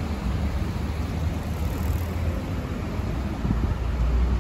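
Steady road traffic on a wet multi-lane city street: a continuous low rumble of passing cars and vans, with tyre noise from the wet road.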